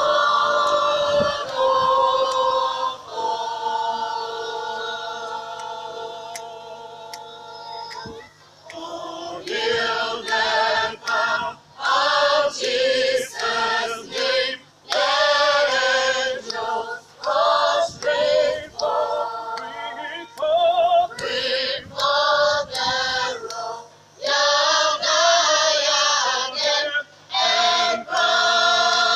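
A school choir singing together: a long held chord that slowly fades over the first several seconds, then a run of shorter, rhythmic sung phrases with brief breaks between them.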